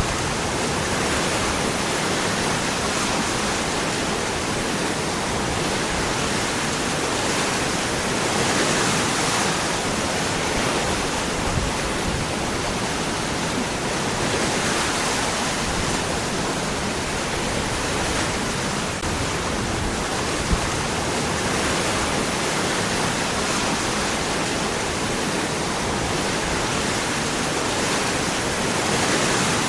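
Waterfall pouring over rocks: a steady, dense rush of falling water that swells slightly now and then.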